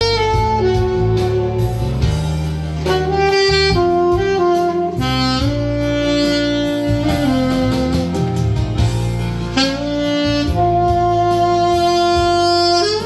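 Alto saxophone playing a slow, lyrical ballad melody of long held notes with smooth slides between them, test-played after a repair.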